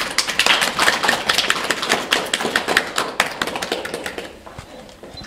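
Audience applauding: a dense patter of hand claps that starts suddenly and thins out over about four seconds.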